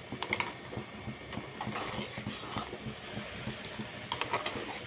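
A metal ladle stirring milk in an aluminium pot, giving soft irregular taps and scrapes against the pot. There is a sharper clink just after the start and a few more near the end.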